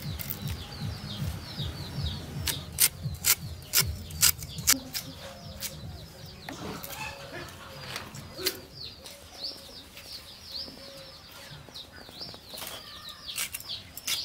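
Knife peeling and cutting a white radish (mooli), giving sharp clicks that come in a cluster a few seconds in and again near the end. Small birds chirp over and over throughout.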